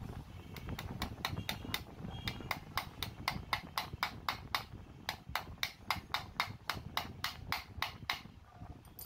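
Quick, even series of hammer taps on metal, about three or four strikes a second, stopping about eight seconds in. This is typical of tapping a new ball bearing home onto a breaker armature's shaft.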